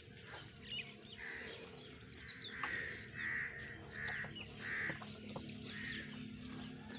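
Small birds chirping, with a crow cawing repeatedly in a series of short calls.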